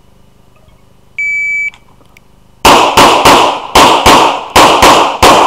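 An electronic shot timer gives its start beep, a single steady tone of about half a second. About a second later a handgun fires a rapid string of about nine shots, roughly three a second, for an IPSC stage.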